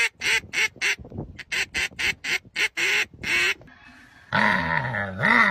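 A duck call, held in a black Labrador's mouth, sounding a rapid run of short quacks, about four to five a second, which stops about three and a half seconds in. Near the end comes a long, wavering animal call whose pitch slides down, up and down again.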